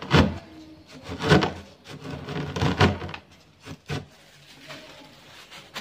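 Dry instant noodles being pounded in a paper cup with a long pole, a few dull knocks about a second apart with the crunch of the crushed noodles. The knocking dies away over the last couple of seconds.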